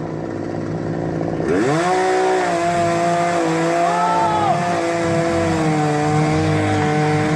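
Chainsaw engine revving up about a second and a half in, then held at high speed with a steady pitch.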